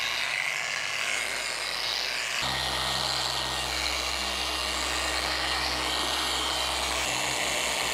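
Handheld machine polisher with a foam pad running steadily on automotive paint. About two and a half seconds in, a deeper hum comes into its sound.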